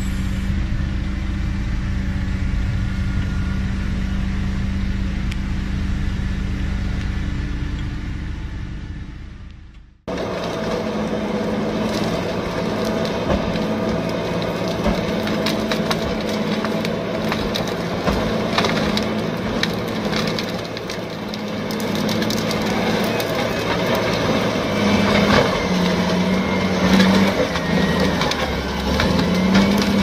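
A heavy machine's engine running steadily, fading out about ten seconds in. Then a machine engine runs under a dense stream of cracking and crunching as wood is broken up.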